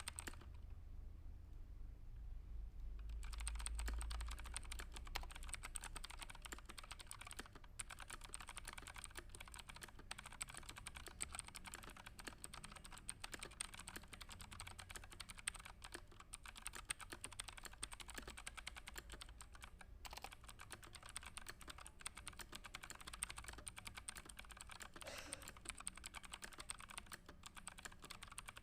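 Fast, continuous typing on a computer keyboard, starting about three seconds in, over a low steady hum.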